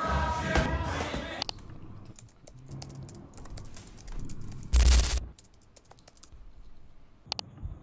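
Music with singing cuts off about a second and a half in, then typing on a laptop keyboard: a run of quick key clicks. A short, loud burst of noise comes about five seconds in.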